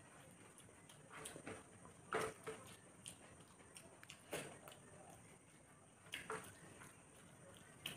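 Faint eating sounds: a person mixing rice by hand on a steel tray and chewing mouthfuls, heard as a few short, scattered smacks and clicks, the loudest about two and four and a half seconds in.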